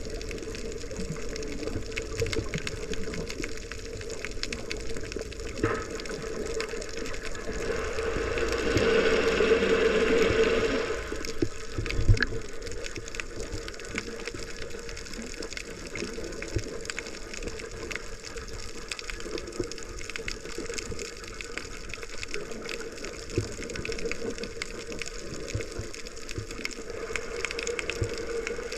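Water sloshing and bubbling around a GoPro while snorkeling, with scattered small clicks. It swells to a louder rush of water about eight seconds in for a few seconds, and there is one sharp knock a little later.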